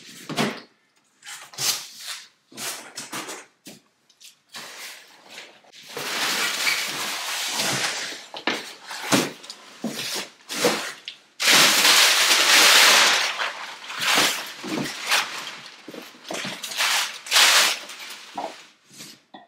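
A parcel being opened by hand: packaging rustling and crinkling, with scattered clicks and knocks and two long, loud spells of rustling about six and eleven seconds in.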